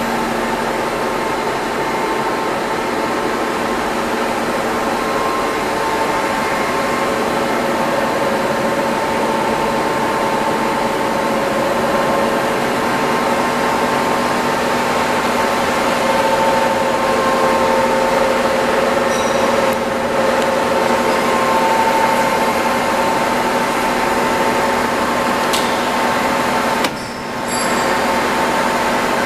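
VOEST ALPINE DA 300/3 centre lathe running without cutting: a steady mechanical hum with several steady whining tones. The sound dips briefly near the end.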